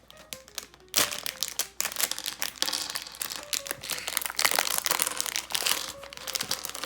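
Crinkling of packaging and paper being handled while a building-block set is unpacked, with small clicks throughout and a sharp knock about a second in.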